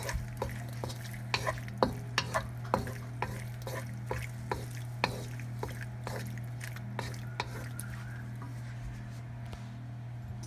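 Wooden spoon stirring penne in tomato sauce around a dark wok, with irregular knocks and scrapes of the spoon on the pan that thin out after about eight seconds. Under it a light sizzle from the pan on the stove and a steady low hum.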